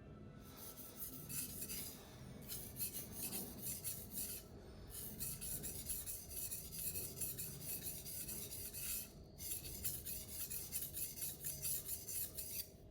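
Steel knife blade stroked rapidly back and forth on a wet 800-grit King Deluxe waterstone, a run of scraping strokes with a few short pauses. The tip is being worked to raise a burr.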